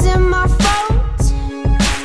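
Background music with a heavy, steady bass beat and a melody line that glides in pitch.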